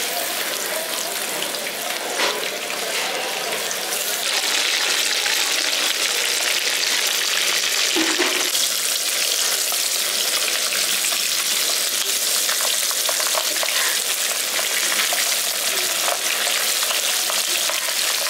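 Pabda fish sizzling as they fry in hot mustard oil in a kadai. The sizzle grows louder about four seconds in, with a few light clicks.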